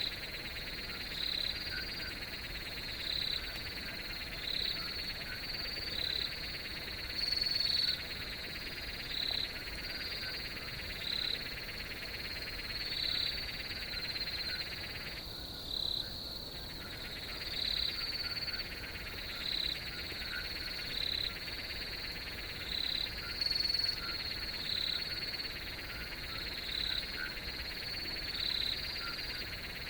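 Night chorus of crickets: a steady high trill with a louder call repeating about every second and a half, over a lower buzzing layer that stops for about a second near the middle.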